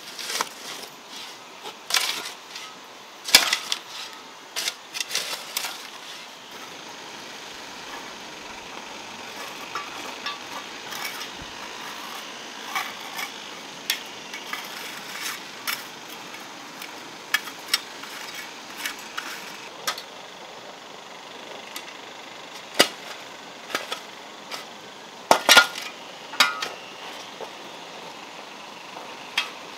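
Metal hand tools, a hoe and then a small trowel, scraping and knocking on a wet sand-and-gravel mix over concrete edging, in irregular strokes with a few louder knocks.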